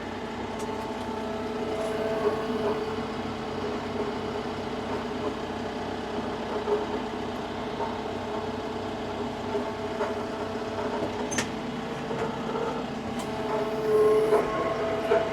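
Tractor engine running steadily, with a steady tone in its drone. It grows louder about fourteen seconds in, with a short click a few seconds before.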